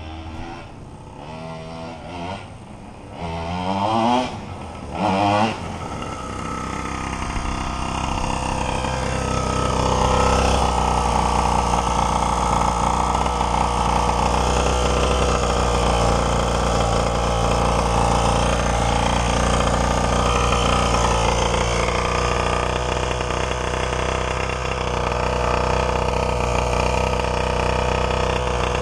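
Primal RC 1/5-scale Raminator monster truck's two-stroke gas engine: a few quick revs rising and falling in pitch over the first several seconds, then running on steadily at an even speed.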